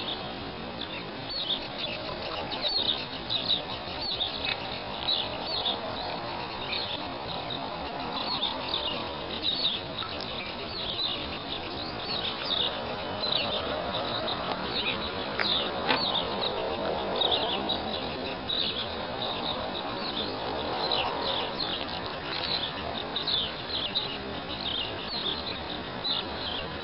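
Small birds chirping in quick, short, high notes, many each second, over a steady background hiss.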